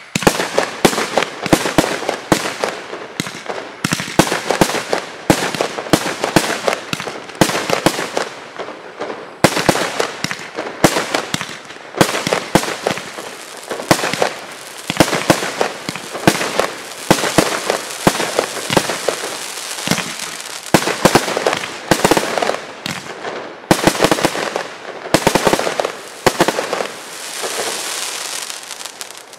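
Hydro Bomb 50-shot firework cake firing shot after shot, a quick run of bangs with crackling bursts in between. Near the end a dense crackle of stars trails off.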